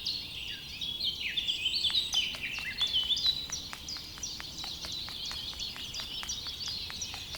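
Birds chirping and twittering in quick, high notes. From about two seconds in there is a steady ticking of roughly three clicks a second.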